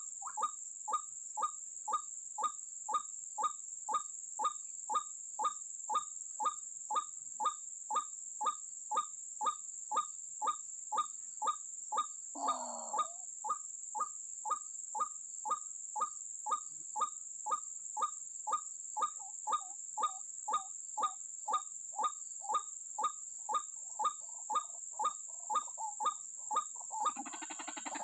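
White-breasted waterhen 'kruak' call repeated with machine-like evenness about twice a second, the steady looped call trappers play as a lure to draw the birds to a snare. A single lower, falling call cuts in about halfway through, and a rustling noise comes in near the end.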